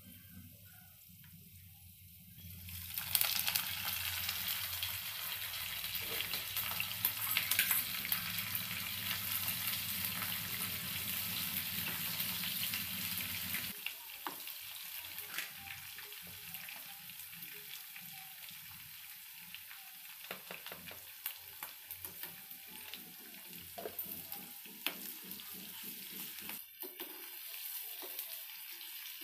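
Onions and green chillies frying in hot oil with cumin seeds in a pan, a loud sizzle that starts suddenly about three seconds in. From about halfway the sizzle is softer, with a spoon clicking and scraping as it stirs.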